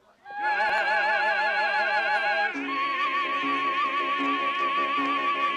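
Operatic singing with vibrato over musical accompaniment, rising to a long held high note from about halfway through.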